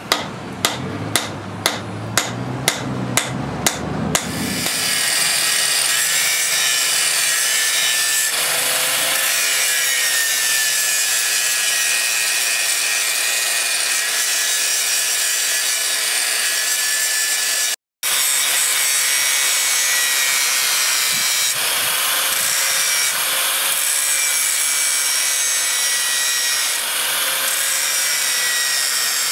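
Hand hammer striking red-hot steel on an anvil, about eight blows two a second. Then an angle grinder with an abrasive disc grinding the forged steel hammer head, a steady grinding noise with a motor whine that wavers as it bears on the work, broken once by a brief gap near the middle.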